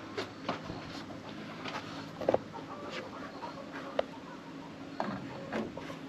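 Scattered light clicks and knocks of a plastic bird feeder being handled and fitted onto its mounting pole, with a sharp double click about two seconds in.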